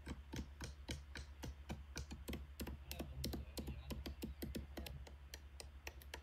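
Several large knives chopping mutton into mince by hand on wooden stump blocks: a quick, irregular clatter of knocks, several a second, over a low steady hum.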